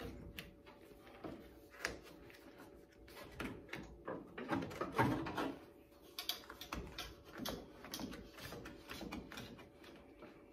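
Rubber roof-rail weatherstrip on a 1969 Dodge Charger being pressed and worked by hand into its tight metal channel: irregular clicks, rubbing and squeaks, busiest about halfway through.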